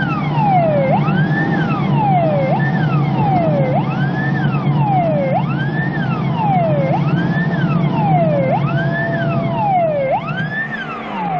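Police car siren wailing: each cycle rises quickly and falls back more slowly, repeating about every 1.6 seconds. A car engine drones steadily beneath it, then drops in pitch near the end as the car slows.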